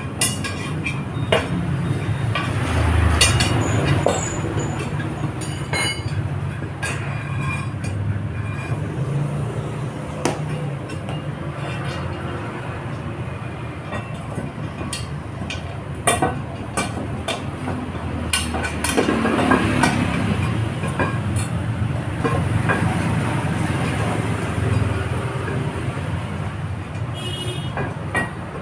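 A steady low rumble throughout, with scattered light clicks and knocks of motorcycle tyres, inner tubes and tools being handled as tyres are worked onto rims by hand.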